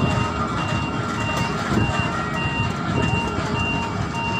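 Electronic warning beeper of a moving railway shunting vehicle, sounding a repeating pattern of high and lower beeps about every half second over a low running rumble.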